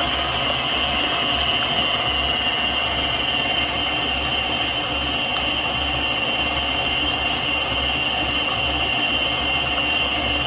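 Electric tilt-head stand mixer running steadily, its flat beater turning through creamed butter, sugar and egg, with a steady high-pitched whine over a low motor hum.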